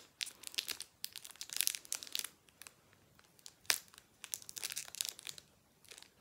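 Foil Pokémon booster pack wrapper crinkling in hand in several bursts of crackle, with one sharp snap a little past halfway.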